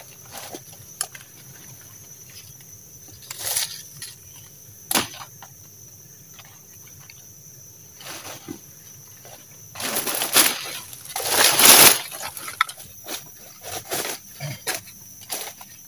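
Machete blows and the rustle of dry leaves and vines as wild forest roots are cut and pulled free: a few sharp knocks in the first five seconds, then a long loud rustling stretch about ten seconds in. Insects keep up a steady high chirr throughout.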